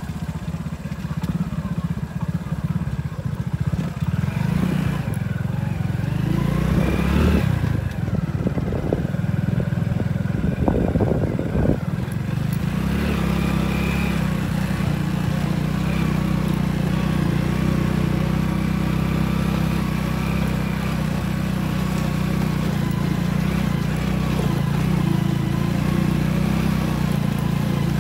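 Small single-cylinder four-stroke commuter motorcycle engine (Hero Splendor/Passion class) running steadily while under way at low speed. A few bumps and rattles come through in the first half as the bike rides over ruts.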